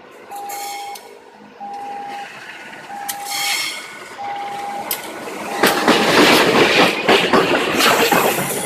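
Electronic warning beeps repeat steadily, about one every 1.3 seconds. About five and a half seconds in, a passing train's wheels clatter loudly over the rail joints, with a faint high wheel squeal near the end.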